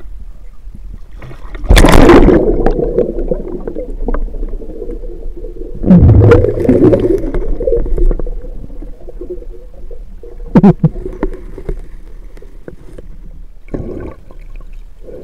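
Water splashing and gurgling as a spearfisher's gun-mounted camera goes under the surface. There are two loud splashes about two and six seconds in, then muffled underwater bubbling with a few sharp knocks.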